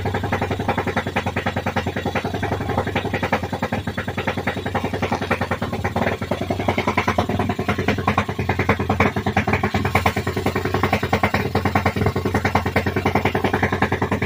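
X-Pro Hawk 250's single-cylinder four-stroke engine idling, a fast, even run of exhaust pulses.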